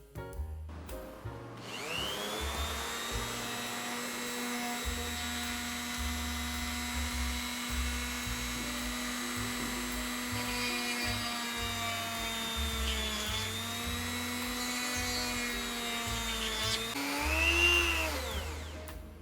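Goxawee G4007 rotary tool's motor spinning up about a second in to a steady high-pitched whine. Its pitch sags briefly partway through, then near the end it dips and swells louder before stopping. Background music with a steady beat plays underneath.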